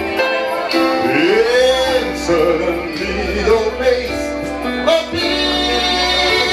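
A man singing live into a microphone over backing music, his voice sliding and bending through wordless vocal runs.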